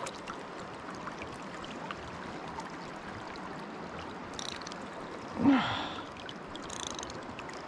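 River current running steadily around a wading angler's legs, with a short grunt-like voice sound with a falling pitch about five and a half seconds in.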